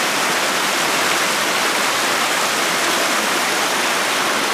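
Fast-flowing stream water splashing down a small step between rocks: a steady, even rushing.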